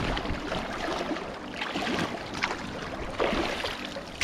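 Shallow river water splashing and gurgling around a wading angler's legs, with a few louder splashes.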